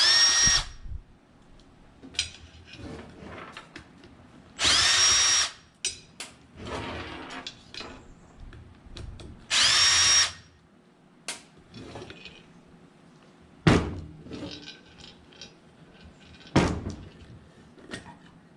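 Power drill/driver run in three short bursts, each whine rising in pitch and then holding steady: backing screws out of the ceiling fan's housing. Between the bursts come clicks, knocks and the clatter of parts being handled.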